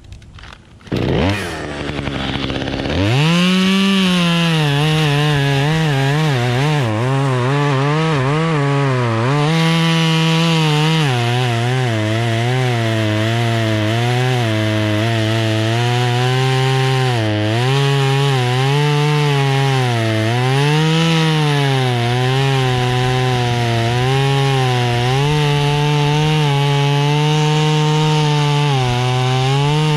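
Two-stroke chainsaw coming up to full revs within the first few seconds, then cutting through ash wood. Its pitch repeatedly sags and recovers as the chain bites and is eased off.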